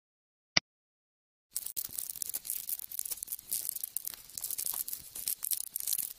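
One short click about half a second in, then from about a second and a half a steady crackling, scratching sound effect as the cartoon ant crawls over a straw hat.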